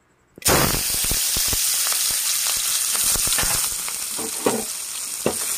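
Sliced onions and green chillies dropped into hot oil, starting to sizzle loudly about half a second in and frying steadily, with the knocks of a spoon stirring them around the metal pan.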